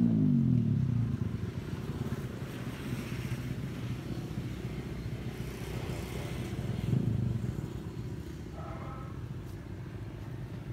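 An engine's pitch drops and fades in the first second, then a steady low engine rumble runs on, swelling briefly about seven seconds in.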